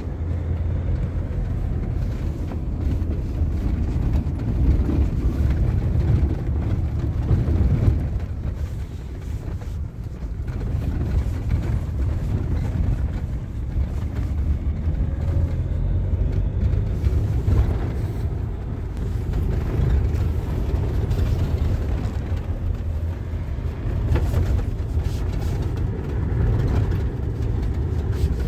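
Steady low rumble of a car in motion, engine and road noise heard from inside the cabin.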